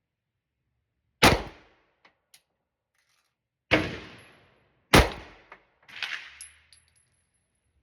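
Pistol shots fired one at a time: three loud reports spaced one to two and a half seconds apart, each with a long trailing echo, then a softer cluster of cracks about six seconds in.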